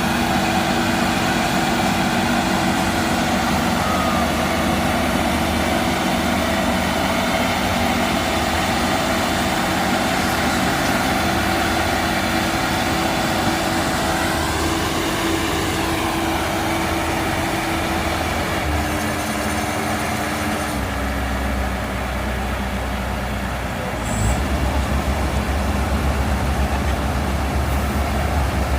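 Combine harvester's diesel engine running steadily. About two-thirds of the way through its note shifts and dips briefly, then comes back with a heavier low rumble.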